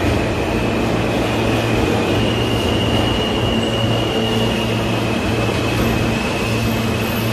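NYC subway A train at an underground platform, its motors and equipment humming steadily with a few thin steady high tones, as the train starts to pull out near the end.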